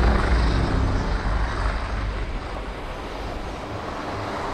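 Helicopter flying over: a steady engine and rotor drone that gradually fades.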